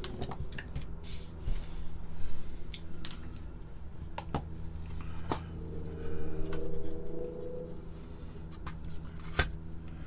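Atari 1050 circuit board and its metal shield being handled and set down on a workbench: scattered sharp clicks and knocks, over a steady low hum.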